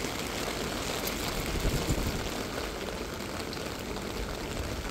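Steady rain falling on a wet paved street, with a low rumble underneath that swells slightly about two seconds in.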